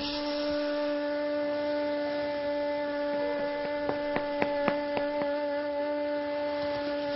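Steady held drone of film-score music: one low sustained note with overtones, like a wind instrument. In the middle comes a quick run of about six sharp taps.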